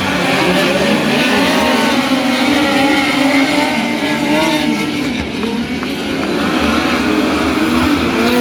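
A field of midget race cars running together in a race, several engines revving and easing off at once so that their pitches rise and fall over one another.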